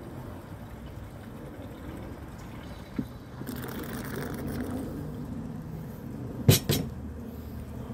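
Liquid poured into a kerosene pressure stove, with a stretch of brighter hiss in the middle and two sharp metallic clicks near the end.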